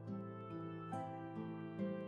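Gentle instrumental background music, with plucked notes changing about every half second.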